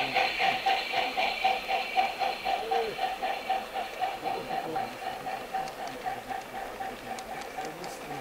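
Garden-railway model freight train rolling past on its track, a rhythmic clicking and whirring about four times a second that fades as the train moves away.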